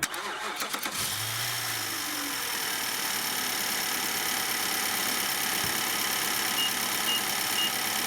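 Infiniti M56's 5.6-litre VK56VD V8 cranking for about a second, catching, and settling into a steady idle. Three short beeps come near the end.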